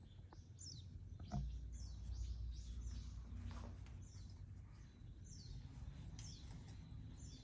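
Small birds calling: many short, high chirps, each sliding down in pitch, over a faint low rumble of background noise, with a brief knock about a second and a half in.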